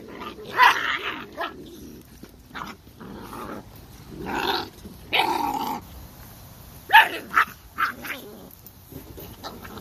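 Puppies growling and yelping as they fight and tug over a raw skinned rabbit carcass, in short sharp calls about a second in, again from about four and a half to six seconds, and in a quick cluster around seven to eight seconds.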